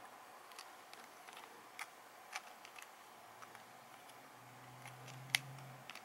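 Faint small clicks and taps of plastic parts and a wire connector being handled and pressed into a snap-together toy robot's plastic body, with one sharper click about five seconds in. A faint low hum runs briefly near the end.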